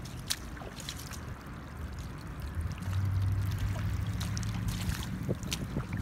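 Footsteps splashing and squelching through shallow water and wet sand on a tidal flat at low tide, with sharp little ticks scattered throughout. A low steady engine hum comes in about three seconds in.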